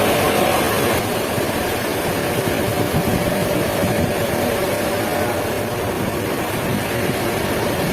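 Sawmill machinery running steadily: a constant mechanical hum with a faint steady tone over it.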